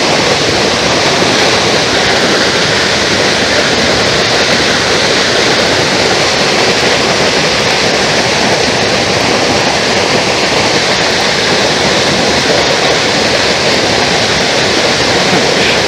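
Water pouring down a dam spillway and falling a long drop below: a loud, steady, unbroken rush of falling water.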